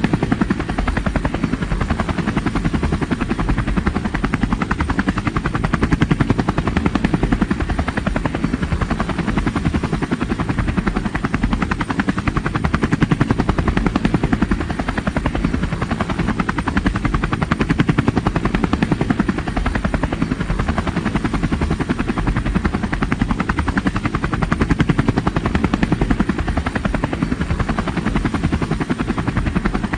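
Helicopter rotor running steadily with a fast, even chopping beat, its loudness swelling and easing slightly every few seconds.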